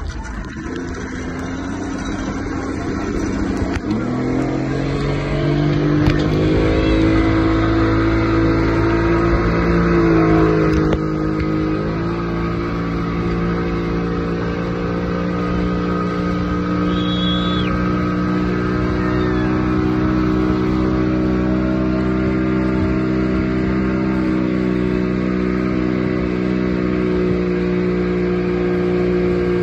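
Speedboat outboard motor pulling away under power while towing a banana boat, its pitch climbing over the first several seconds, then running steadily at speed.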